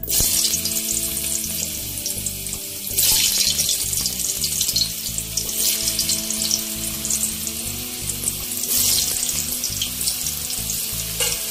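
Diced potatoes sizzling as they fry in hot oil in a kadai, the sizzle starting abruptly as the pieces hit the oil, with louder spells of crackle about three and nine seconds in.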